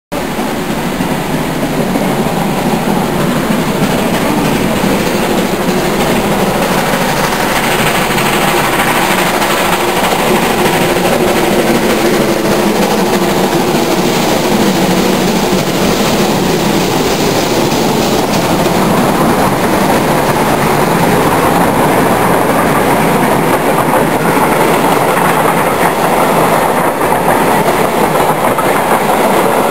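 Steam train double-headed by a DB class 41 and a class 01.10 locomotive passing at speed, the locomotives working steam and then the passenger coaches rolling by. The noise is loud and steady throughout, growing slightly louder in the second half.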